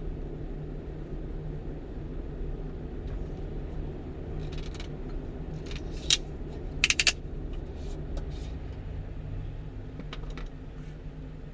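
Steady low engine and road noise heard inside the cab of a moving 1-ton truck, with a few short clicks or rattles, the sharpest about 6 and 7 seconds in.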